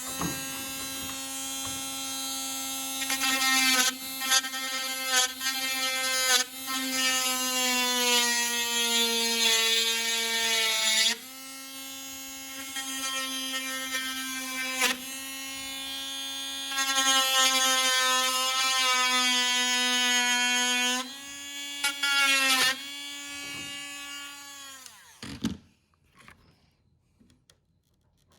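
Dremel rotary tool running, drilling out a plastic Robart-style pin hinge; its pitch sags now and then as the bit bites under load. It winds down and stops near the end.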